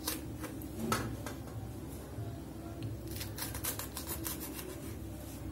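Faint, irregular clicks and taps of green chillies being cut by hand on a wooden cutting board, with a quick run of them about three seconds in.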